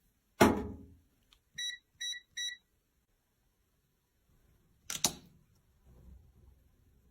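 A sharp knock with a short ringing tail, then three short electronic beeps about 0.4 s apart, then a quick double click about five seconds in, followed by faint rubbing.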